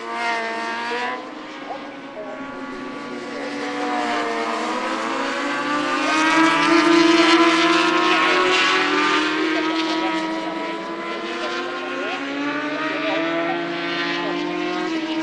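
Several superbike racing motorcycles' engines running at high revs as they pass along the track, their pitches rising and falling with the throttle and crossing one another. The sound is loudest about seven seconds in.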